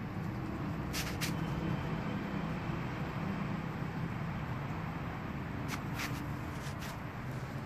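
A Blue Bay Shepherd gnawing and licking a chunk of frozen venison, with a few sharp clicks of teeth on the frozen meat about a second in and again near the end. A steady low rumble runs underneath.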